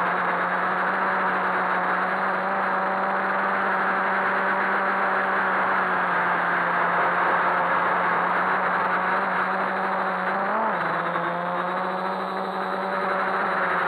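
Quadcopter's electric motors and propellers whirring steadily, picked up by the onboard camera along with airflow hiss. About ten and a half seconds in, the pitch briefly rises, then settles lower as the motor speed changes.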